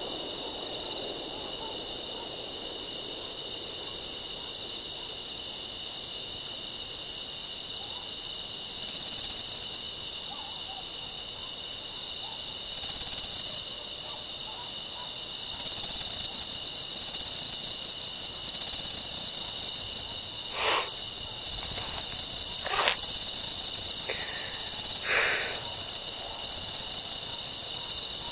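Summer-night animal chorus: a pulsing high-pitched trill that calls in short bouts, then almost without a break from about halfway on, over a steady high drone. A few short, sharp sounds cut through in the last third.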